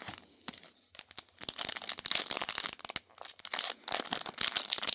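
Trading card pack wrapper being torn open and crinkled by hand: a few sharp crackles at first, then a dense, continuous crackling from about a second and a half in.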